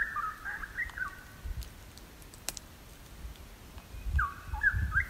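A wild bird calling twice, each time a short phrase of quick warbling, gliding notes lasting about a second: once at the start and again about four seconds in. Faint low rumbling lies underneath.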